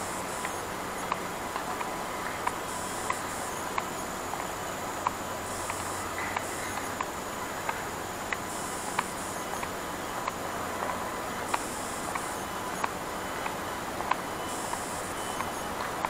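Footsteps of someone walking on a path, about one and a half steps a second. An insect calls in short high bursts about every three seconds over a faint steady low hum.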